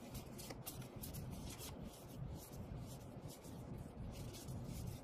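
Magic: The Gathering cards sliding and flicking against one another as hands sort through two fanned stacks. A faint run of quick, irregular card clicks and rubs.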